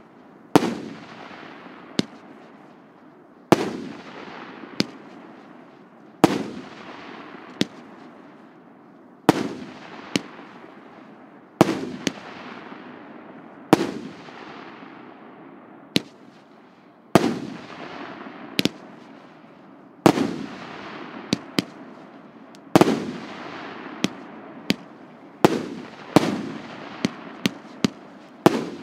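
A 100-shot, 1.5-inch consumer firework cake firing: sharp bangs from shells launching and bursting, each bang trailing away over a second or two. The shots come every two to three seconds and quicken into a rapid string near the end.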